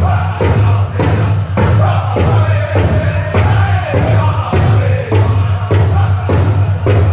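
Powwow drum group singing a chicken dance song: several voices in chorus over a big bass drum struck in a steady, even beat of about two and a half strokes a second.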